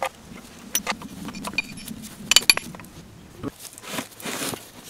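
Metal clinks and knocks from an old engine block and its crankshaft being handled and turned over by hand, with a quick run of sharp clinks about halfway through.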